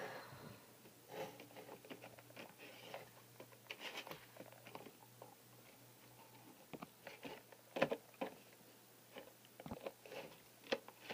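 Faint, scattered taps, clicks and rustles of hands handling cardboard dollhouse props and a plastic Littlest Pet Shop figure on a tabletop, a few sharper knocks standing out, over a faint low hum.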